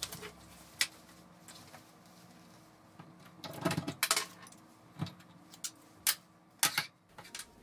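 Sharp clicks and knocks of a chrome water-purifier faucet being pulled out of its countertop mounting hole and handled against the counter. There is a short cluster of rattling knocks a little under four seconds in, then a few single clicks.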